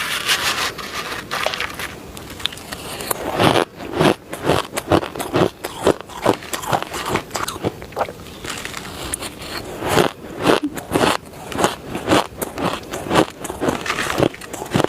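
Crisp, dry crushed shaved ice being bitten and chewed close to the microphone: a rapid run of crunches several times a second, growing louder and sharper from about three seconds in.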